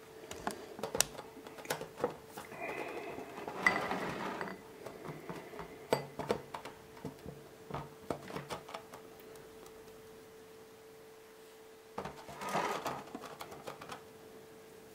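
Light handling noise as a rubber balloon is set on a drinking glass: scattered small taps and clicks with short stretches of rubbing, over a faint steady hum.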